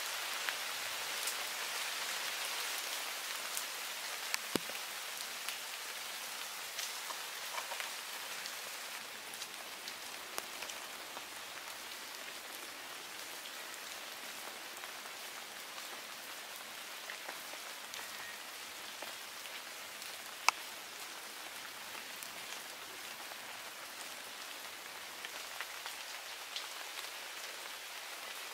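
Steady rain falling, a continuous hiss with scattered sharp ticks of single drops, one louder tick about twenty seconds in.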